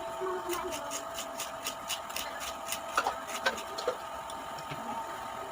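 Raw jicama being chewed: a quick run of crisp crunches for about two seconds, then a few louder crunches, over a steady background hum.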